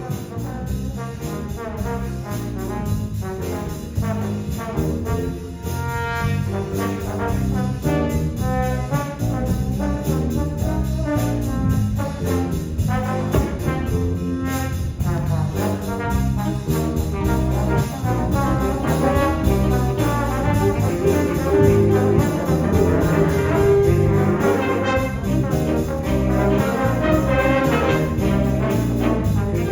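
High school jazz ensemble playing a big-band chart, with the brass section to the fore, growing gradually louder over the passage.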